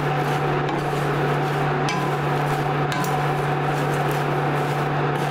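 Wooden spatula stirring thin poha (flattened rice flakes) as they dry-roast in a stainless steel pan: a continuous dry rustle and scrape, with a couple of light knocks against the pan. A steady low hum runs underneath.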